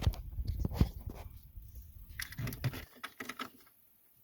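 Scattered small clicks and taps of a replacement ignition switch being handled and slid into place in a car's steering column, the sharpest about a second in.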